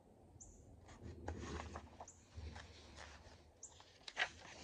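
A paper page of an old picture book being turned by hand: rustling and sliding paper for a few seconds, ending in one sharp, crisp snap of the page near the end.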